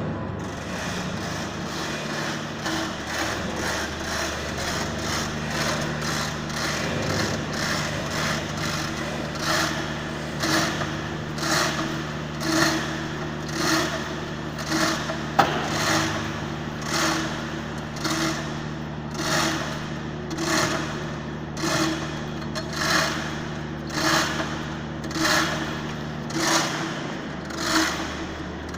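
A steady machine hum with a regular knock or clank about once a second, starting about a third of the way in.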